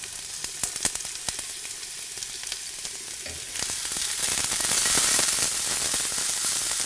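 Sliced onion half-rings sizzling in hot oil in a frying pan, with scattered small pops; the sizzle grows louder from about halfway through.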